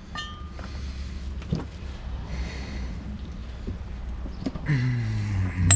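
A man straining with effort on a spanner against a stuck tractor oil filter: a hard breath, then a falling groan near the end. A sharp metallic click at the very end.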